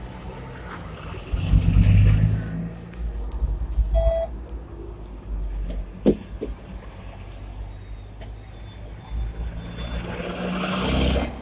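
Low, steady traffic rumble inside a standing Hong Kong double-decker tram, swelling twice as heavy vehicles such as buses pass alongside. A short electronic beep sounds about four seconds in, and a single sharp knock about six seconds in.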